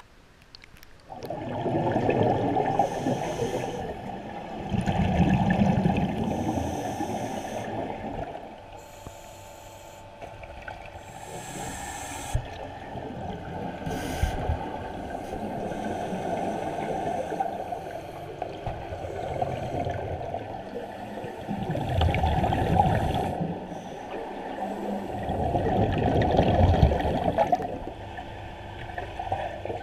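Scuba divers breathing through their regulators, heard underwater: muffled rushing bubble noise from exhaled air that begins about a second in and swells and fades again and again.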